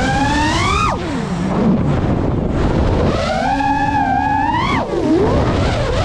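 FPV quadcopter's motors and propellers whining, the pitch climbing under throttle and falling away sharply when throttle is cut, twice: once about a second in and again near five seconds. Wind rushes over the microphone throughout.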